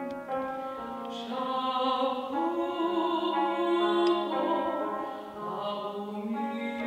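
A female classical voice sings held, slow notes to cimbalom accompaniment, with a few sharp struck notes of the cimbalom ringing under the voice.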